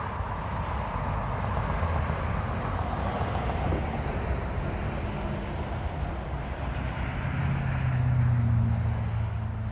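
A motor vehicle's engine running, a steady low rumble that grows louder about three-quarters of the way through and then eases off.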